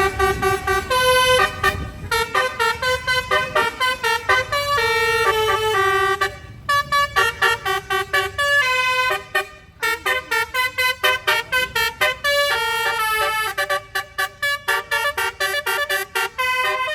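A bus's telolet air horn, a multi-trumpet musical horn, playing a fast melody of short, distinct notes that jump in pitch, with some quick repeated notes.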